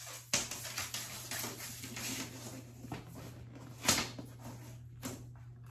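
Scraping and rustling handling noises with three sharp knocks, the loudest about four seconds in, over a steady low hum.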